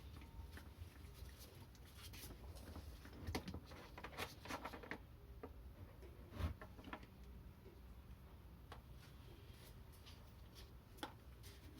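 Faint scattered clicks and taps of tools and parts being handled during a car oil change, over a low rumble, with a small cluster of taps a few seconds in and a sharper knock about halfway.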